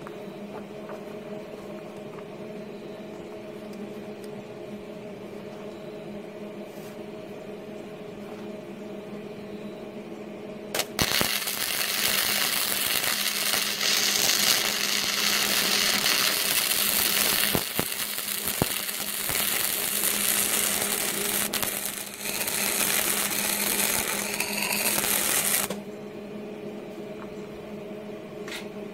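Hobart Handler 120 flux-core MIG welder humming steadily. About eleven seconds in the welding arc strikes and crackles for about fifteen seconds, with a brief break partway through, then stops, leaving the hum.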